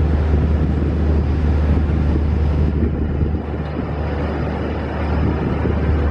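Diesel locomotive engine running with a steady, heavy low drone, with wind buffeting the microphone.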